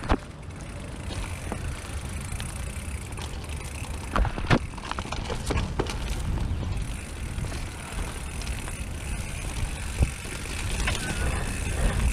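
Kalis mountain bike rolling fast down a dirt trail strewn with dry leaves: a steady low rumble of tyres and air, with sharp knocks and rattles from the bike over bumps about four seconds in and again near ten seconds.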